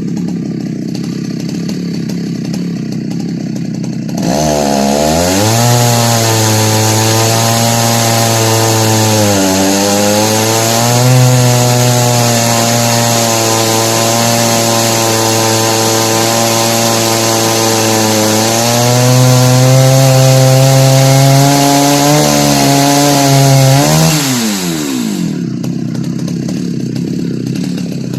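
Jonsered 70E two-stroke chainsaw idling, then throttled up at about four seconds and held at high revs, cutting along an ash log in a chainsaw mill. Its pitch sags briefly a couple of times under the load. It drops back to idle about twenty-four seconds in.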